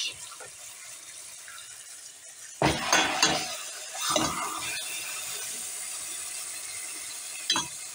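Beef steaks sizzling in hot oil and butter in a stainless steel pot. About two and a half seconds in, and again near four seconds, there are loud sudden bursts of sizzling and clatter as more meat goes in, and the steady sizzle is a little louder afterwards.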